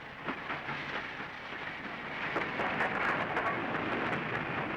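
Steam locomotive hissing steam: a steady rushing hiss with scattered crackles, growing a little louder about two seconds in.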